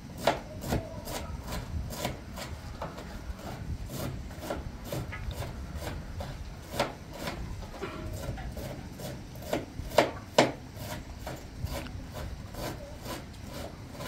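Knife chopping pancar (chard) greens on a wooden cutting board: a long run of irregular chops, roughly two a second, with two louder ones about ten seconds in.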